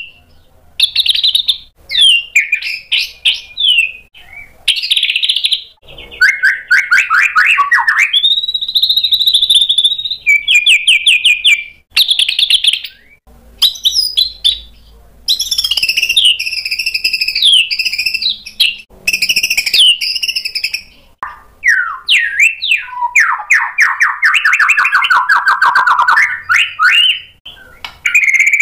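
Male white-rumped shama singing a loud, varied song of mimicked phrases. It mixes clear whistled glides with fast runs of repeated notes and warbles, in phrases separated by short pauses.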